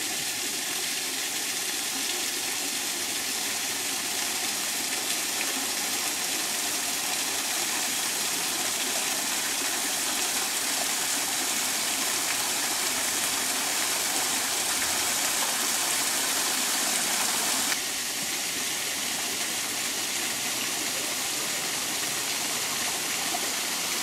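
A small travertine waterfall: thin streams of spring water falling and splashing steadily down mossy travertine ledges. The sound gets a little quieter about eighteen seconds in.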